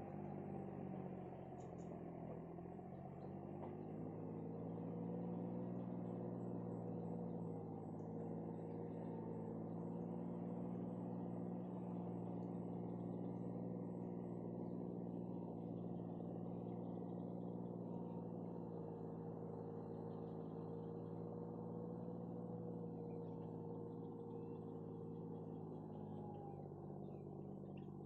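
A steady low hum with many even overtones, like an engine running at idle, its pitch wavering slightly.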